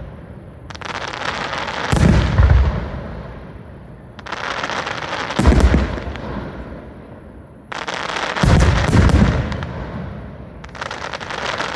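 Aerial fireworks shells being fired one after another. Each starts with a sharp launch, then bursts a second or so later with a deep boom, and its noise trails off slowly. There are about four shells, with a double burst near the end.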